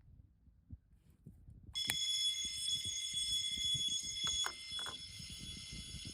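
Miniature capsule-toy fire alarm set off, sounding a steady ringing alarm with several high tones; it starts suddenly about two seconds in after a few soft handling clicks and drops slightly in level near the end.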